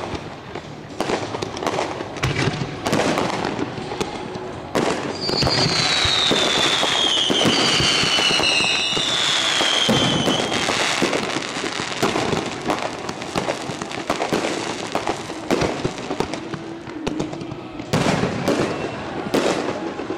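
Aerial fireworks going off in a rapid series of sharp bangs from bursting shells. About five seconds in comes a dense, loud run of bursts with two falling whistles overlapping it, and another cluster of sharp bangs comes near the end.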